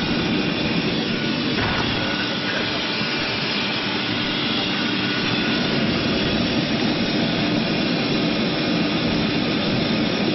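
Jet airliner's engines and cabin noise heard from inside the cabin as the plane taxis: a steady rush with a low hum, unchanging throughout.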